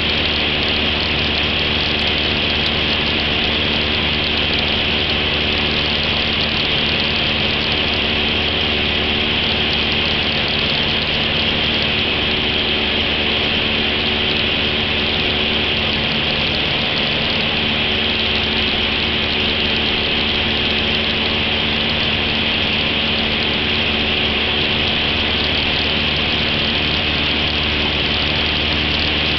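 Cessna 172's piston engine and propeller running steadily in flight, with a constant high hiss over the engine drone.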